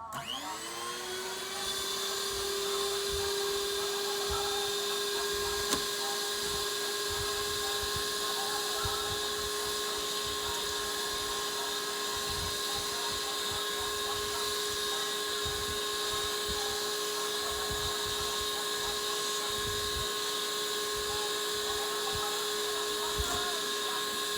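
Electric kitchen mixer switched on, its whine rising within a second to a steady speed and running evenly, with irregular low knocks and rattles underneath.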